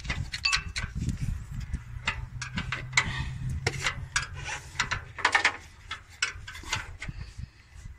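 Irregular metallic clicks, clinks and knocks of an Allen wrench and bolts being worked loose on a truck's fan clutch pulley, with a low steady hum from about a second in to about five seconds in.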